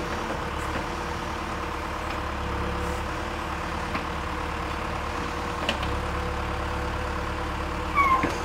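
John Deere backhoe loader's diesel engine running steadily while its hydraulic arm digs, with a couple of faint clicks.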